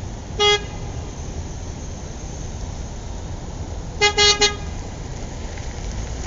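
Car horn: one short toot about half a second in, then three quick toots in a row about four seconds in. Under them runs a steady low rumble.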